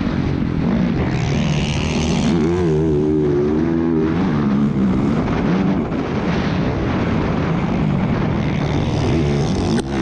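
A Honda motocross bike's four-stroke engine heard on board at race pace, its pitch rising and falling as the throttle is worked, with wind rush over it. Near the end the engine briefly drops off with a sharp tick as the bike slows for a corner.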